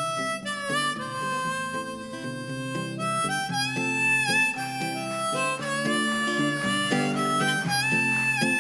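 Harmonica playing a melody with bent, wavering notes over acoustic guitar accompaniment: the instrumental opening of a folk-pop song.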